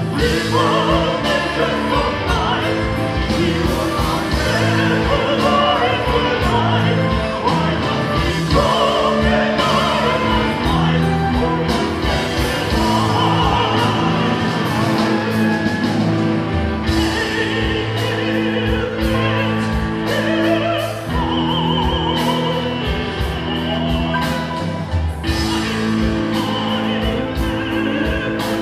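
Symphonic metal band playing live: singing over sustained keyboards, guitars and drums.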